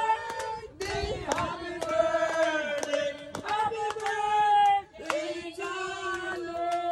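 A group of voices singing together in long held notes, with hand clapping throughout.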